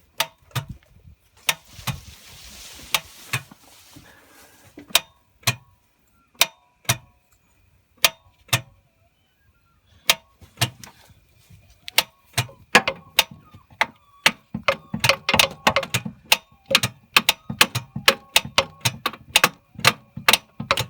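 Hammer striking a sticking starter motor, sharp metallic blows each with a short ring. They come one at a time, then a quicker run of about three or four blows a second from about twelve seconds in. This is the tapping used to free a jammed starter.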